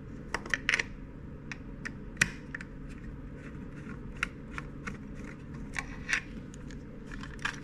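Small irregular clicks and taps of a plastic battery charger case being handled and worked on with a small screwdriver, a couple of them sharper about a second and two seconds in.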